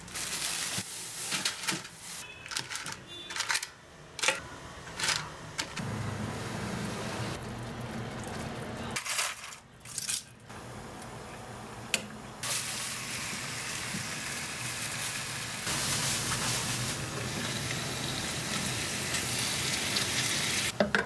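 A black plastic bag rustling and crinkling in short bursts, then vegetables dropped into a pot, then a steady sizzle from seasoned beef short ribs reheating in a frying pan, starting about twelve seconds in.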